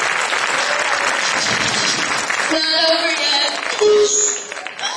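Audience applauding, stopping about halfway through, after which voices and a few short held notes are heard.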